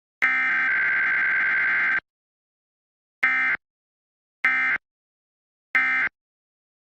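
Emergency Alert System (SAME) digital data bursts of a Required Weekly Test: the last long header burst ends about two seconds in, then three short bursts about a second apart, the end-of-message code.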